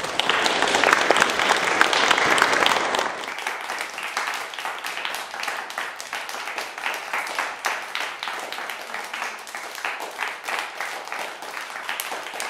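Audience applauding. It is loudest for the first three seconds or so, then thins to lighter, scattered clapping.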